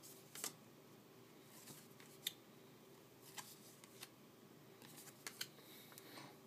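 Near silence with faint, scattered clicks and slides of glossy baseball cards being handled and flipped by hand, over quiet room tone.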